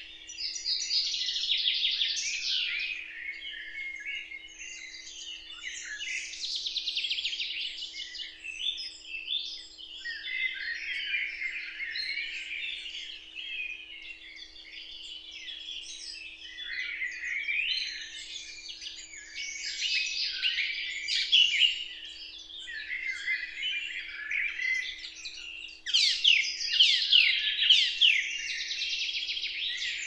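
Small songbirds singing and chirping without pause in a dense chorus of short high phrases, louder for the last few seconds.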